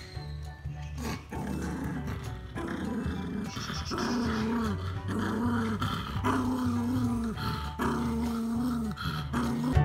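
Small red poodle growling in a string of snarls, each about a second long and stronger from about four seconds in. It is guarding its toy bone from being taken.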